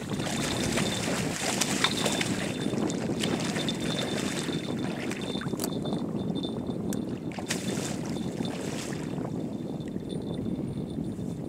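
Steady wind noise on the microphone, with scattered clicks and rustling from fishing tackle being handled that die away about nine seconds in.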